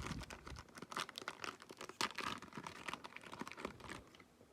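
Trading card pack wrappers crinkling and tearing as a foil pack is torn open and handled, a dense irregular crackle that dies down about four seconds in.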